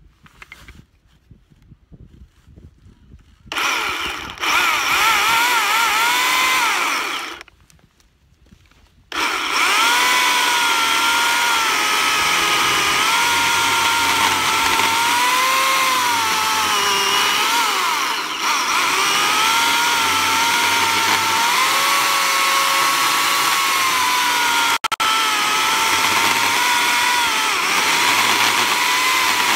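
Makita chainsaw ripping lengthwise through a green cherry log. After a few quiet seconds it runs briefly, stops, then from about nine seconds in cuts steadily, its whine wavering as the chain bites into the wood.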